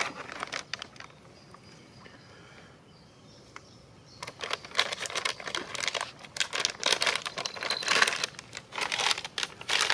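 Plastic military ration (MRE) pouch crinkling as it is handled and opened: a brief rustle at the start, then from about four seconds in, a dense, loud run of crackling crinkles.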